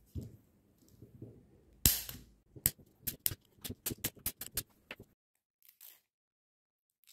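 Scissors cutting through the wall of a thin plastic cup around a frozen popsicle. A sharp crack comes about two seconds in, then a quick run of about ten crisp snips and plastic clicks over the next two and a half seconds.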